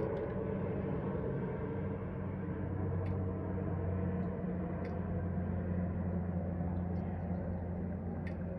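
Beech 1900C twin turboprop climbing away overhead: a steady drone with a low propeller hum that slowly fades as the plane recedes.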